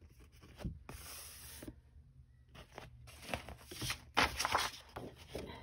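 Sheets of 12x12 patterned scrapbook paper being handled and shuffled, sliding and rustling against each other in irregular strokes, loudest about four seconds in.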